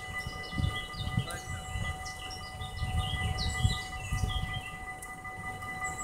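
Dutch level-crossing warning bells ringing continuously as a steady multi-tone ring while the barriers are down, with small birds chirping over them.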